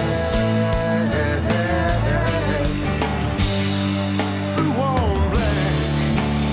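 Rock music with electric guitar, bass and a steady drum beat.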